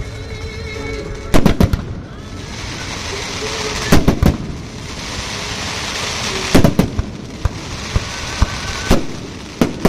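Fireworks display going off: loud bangs of bursting shells, often in quick pairs, every two to three seconds. A dense crackling hiss from crackle effects runs between the bangs from about two to seven seconds in.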